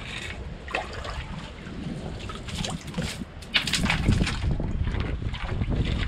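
Shallow rock-pool water splashing and sloshing as hands and a hand net stir through it, the splashes getting louder about halfway through; wind rumbles on the microphone underneath.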